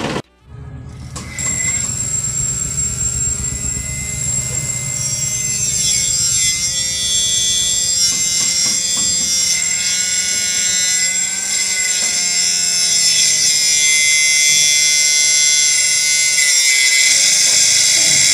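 A small electric motor whines steadily as it spins a toy tractor's miniature circular saw blade, over background music. Both cut out briefly about half a second in.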